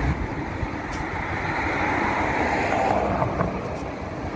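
Steady road traffic noise: the even rush of cars driving along the road.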